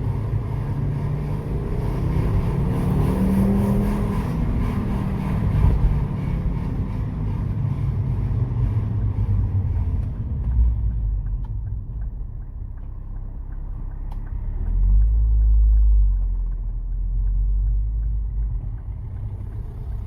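Ford Focus ST225's turbocharged five-cylinder engine running under way: it pulls up through the revs with a rising pitch over the first several seconds, then settles to a lower rumble with a brief deep swell near the end. Heard through a resonated Mongoose cat-back exhaust, it is quite quiet.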